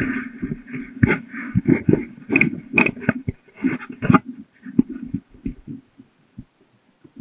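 Handling noise on a helmet-mounted GoPro as the helmet is put on a child and fastened: a dense run of knocks and rustling for about four seconds, then a few scattered taps.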